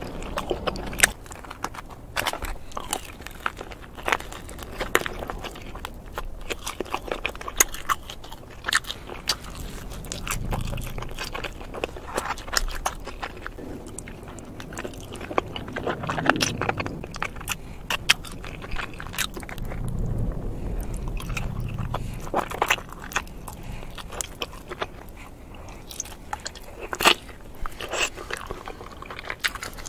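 Close-miked eating: biting and chewing cheesy pepperoni pizza and chicken wings, with many sharp wet mouth clicks and soft chewing swells.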